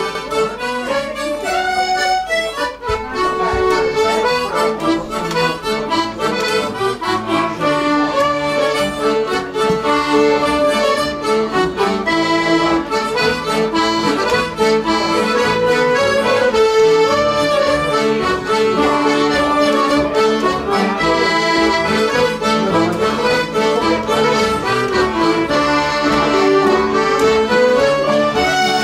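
Traditional folk session band playing a polka: button accordion carrying the tune with fiddles and a strummed acoustic guitar, to a steady beat.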